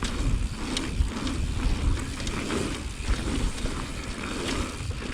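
Mountain bike being ridden hard around a dirt pump track: tyres rolling over the dirt with scattered rattling clicks from the bike, and wind rumbling on the microphone in uneven surges.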